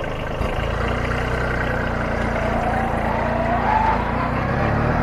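Kubota A211N mini tractor's diesel engine running steadily as the tractor drives off, with a tone that rises in pitch about midway through.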